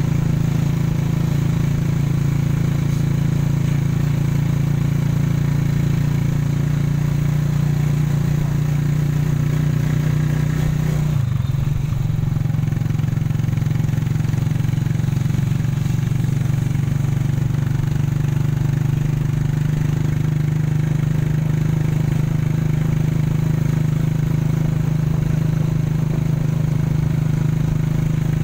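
Steady low drone of the engine and road noise of a moving road vehicle, heard from inside while riding, with a brief break in the drone about eleven seconds in.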